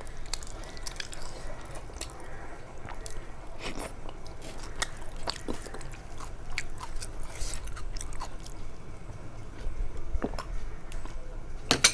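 Close-miked chewing and wet mouth smacks of a person eating khichdi, with many small clicks and one louder click near the end.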